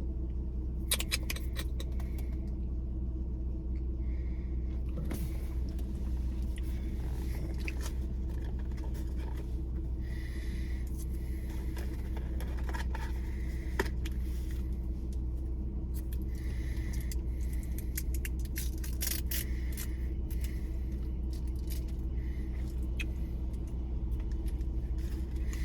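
Steady low hum inside a car's cabin, as from a running engine or its fan, with scattered light clicks and rustles of food wrappers and eating.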